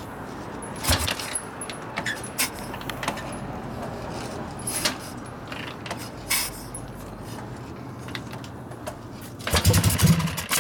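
Harley-Davidson Ironhead Sportster V-twin being kick-started: scattered metallic clicks and clanks from the kick lever and the engine turning over. About nine and a half seconds in comes a short burst of loud low thumps as the engine fires and kicks back, running backwards against the kick-starter.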